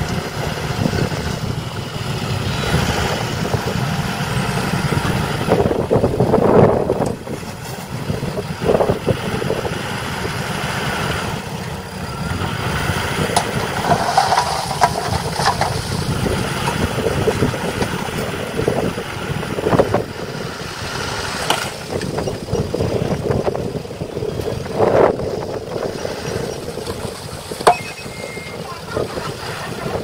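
Dump truck's diesel engine running while its hydraulic tipper bed rises and soil slides out of the bed, with scattered knocks of falling earth and stones.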